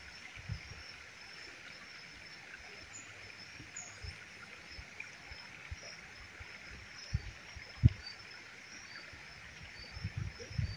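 Shallow stream flowing over a stony bed, a steady soft hiss of running water, with faint high chirps repeating throughout and a few low thumps, the loudest about eight seconds in.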